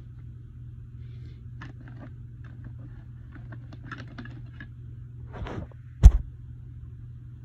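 Faint rustling and small clicks over a steady low hum, then a short brushing sound and a single loud thump about six seconds in.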